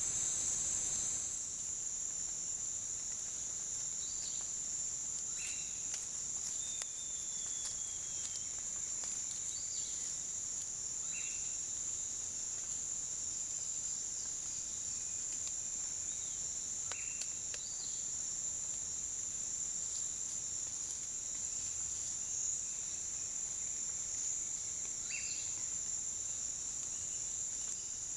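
Steady high-pitched drone of rainforest insects, with short faint chirping calls every few seconds.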